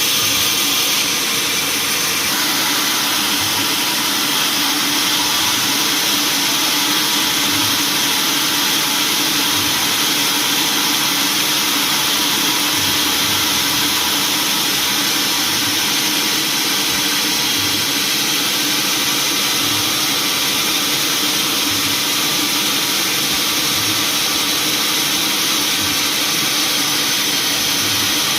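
Sawmill machinery running steadily: an even, unbroken mechanical noise with a constant hum under a hiss, getting a little brighter about two seconds in.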